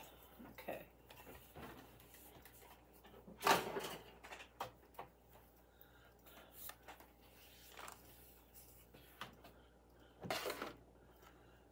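Objects being handled and moved about on a desk: scattered light knocks and rustles, with a louder short clatter about three and a half seconds in and another near the end.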